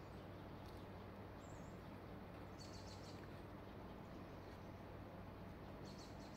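Near silence: a steady low hum of room tone, with faint high chirps twice, about two and a half seconds in and near the end.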